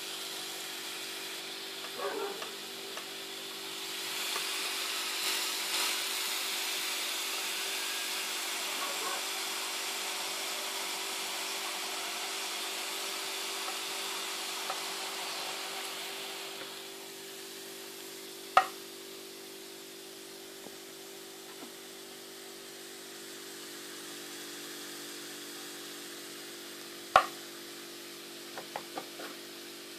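Grapes sizzling and hissing between the hot plates of a closed electric waffle maker, louder through the first half, then settling to a softer hiss. Two sharp knocks, about ten seconds apart, in the second half, the last just before the lid stands open.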